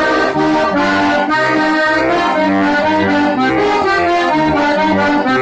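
Instrumental accordion music: a traditional folk tune with chords and melody over a regular bass line.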